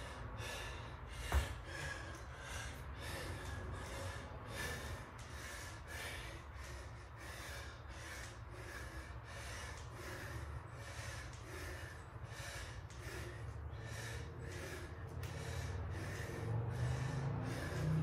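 A man breathing hard in quick, even breaths, about two a second, from the exertion of bodyweight squats. A low rumble grows near the end.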